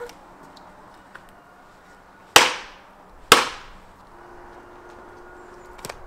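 Two sharp, loud hatchet strikes about a second apart, chopping firewood on a stump.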